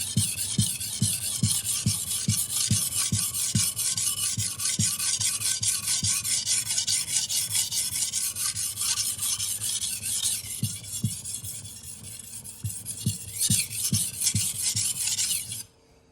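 Damascus knife blade being stroked back and forth on an 800-grit whetstone: a gritty scraping hiss with a soft knock at each stroke, about two or three strokes a second. The strokes grow quieter for a couple of seconds past the middle, pick up again, and stop abruptly near the end.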